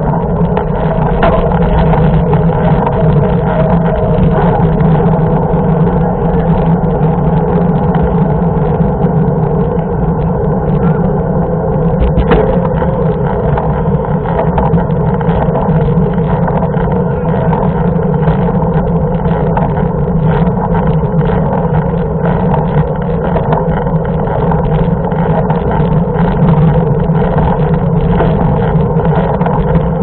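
Steady, unbroken road noise of a mountain bike rolling along an asphalt road: knobby-tyre hum and wind rumble picked up by a handlebar-mounted camera.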